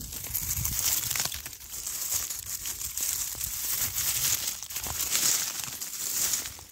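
Lumps of wood charcoal shifting and clinking against each other in irregular bursts as a hand stirs through a heap of them.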